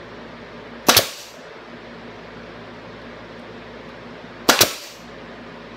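Pneumatic stapler firing twice, about three and a half seconds apart, driving staples into wooden blocks. Each shot is a sharp crack with a quick second snap.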